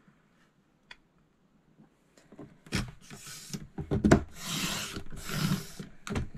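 Creative Memories 12-inch paper trimmer cutting a sheet of patterned paper: the blade carriage scrapes along its rail in four or five rasping strokes starting about two and a half seconds in, with a sharp knock partway through.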